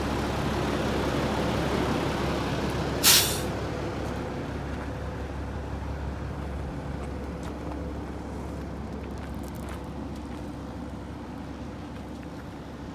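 Mitsubishi Aero Midi bus's 6D17 six-cylinder diesel idling steadily and growing fainter, with one short, sharp hiss of compressed air from the air brake system about three seconds in.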